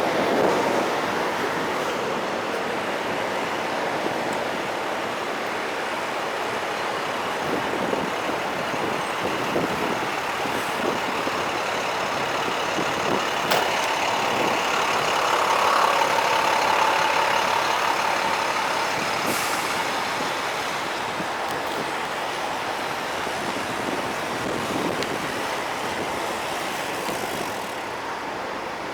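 Steady noise of heavy trucks running in a truck-stop lot, with a few brief clicks.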